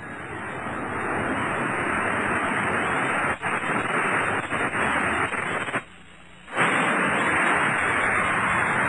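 Dense, steady rushing roar of the South Tower of the World Trade Center collapsing, picked up on a camcorder microphone. It builds over the first second or so and briefly drops out just before six seconds in, then carries on.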